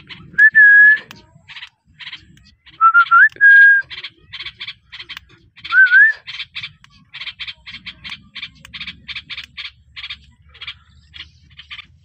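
Rose-ringed parakeet giving three clear whistles, the later ones rising in pitch, then a fast run of short scratchy chirps, about three a second.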